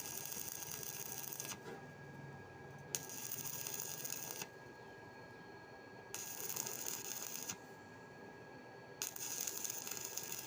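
Stick welding arc crackling in four short runs of about a second and a half each, starting and stopping abruptly, with a steady high whine underneath.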